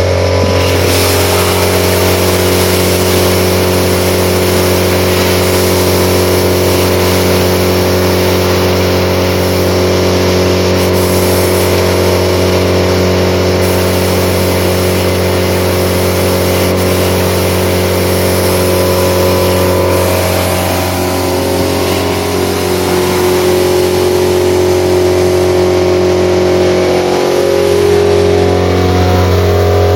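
Multi-Vac Mini Series 3000 industrial vacuum loader running under suction, a loud steady drone with a strong low hum and several steady tones above it. About two-thirds of the way in the drone dips briefly and its tones shift a little.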